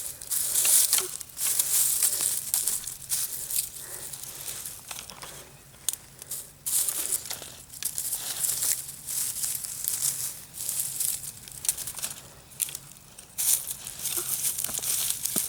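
Dry twigs being snapped and piled onto crumpled newspaper to lay a campfire: irregular rustling and crackling.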